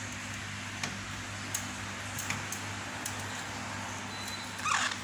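Steady low hum with a few faint clicks, and a short rising squawk from the young brown-throated conures near the end.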